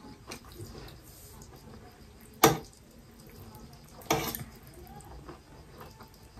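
Metal cutlery clinking and scraping against steel plates during eating, with one sharp clink about two and a half seconds in and a short rattle of scrapes around four seconds.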